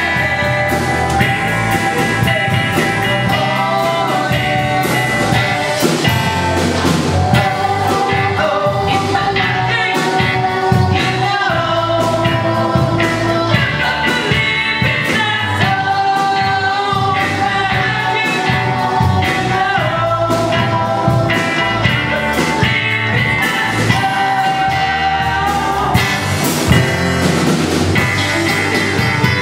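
Live rock band playing steadily: electric guitars, keyboard and drums, with a man singing lead over them.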